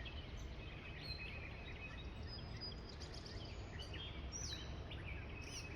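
Faint scattered high chirps and peeps of small birds, some short falling notes, over a steady low outdoor rumble.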